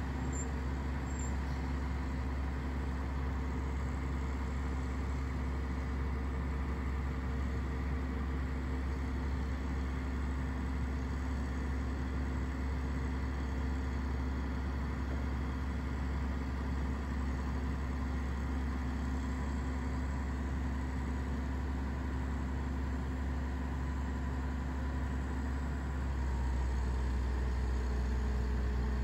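Diesel engine of a Grove RT60 rough-terrain crane running steadily as it lifts a Log Bronc log-pond boat of about 30,000 pounds on its hook, a low drone that gets a little louder near the end.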